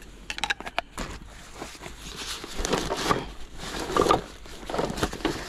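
Handling and rustling of a fabric bag while gear is packed away, with a few sharp clicks near the start and then irregular rustling bursts.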